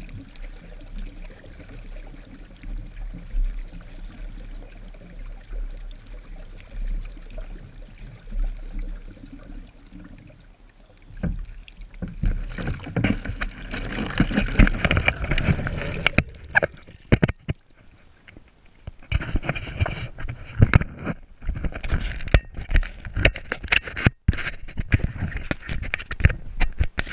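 Water churning and splashing off a hand-powered wooden paddlewheel turning on a small catamaran, growing louder about halfway through, with many sharp knocks and splashes near the end.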